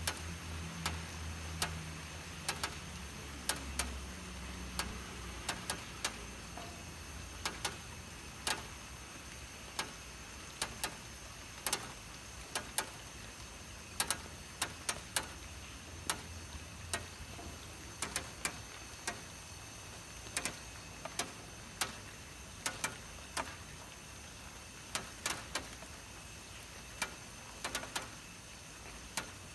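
Raindrops knocking on a roof: irregular sharp taps, sometimes several in quick succession, over a steady hiss of rain.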